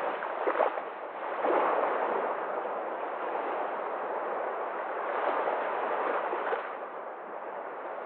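Small sea waves breaking and washing up a sandy beach, a steady surf hiss that swells as each wave comes in, twice in the first two seconds and again around five to six seconds, then eases as the water draws back.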